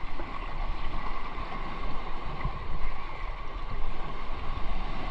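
Shallow sea water swishing and sloshing around legs as people wade through it, with wind rumbling on the microphone.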